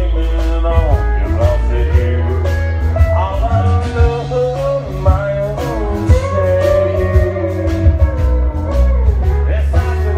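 Live country band playing: electric bass and drums under a sung melody with guitar.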